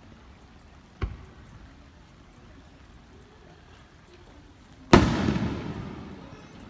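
Two fireworks bursting: a sharp bang about a second in, then a much louder boom near the end that rolls away over a second or so.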